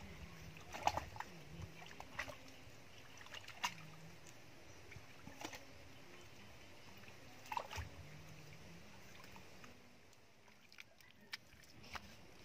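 A long-handled spade driven into wet, clayey mud while digging a hole: about five wet, squelching strokes a second and a half to two seconds apart, quieter near the end.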